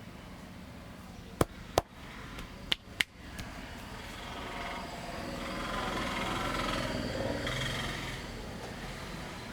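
Four sharp, loud cracks in two quick pairs, about a second apart, from the hands-on work of a head and neck massage. In the second half, passing street traffic swells and fades.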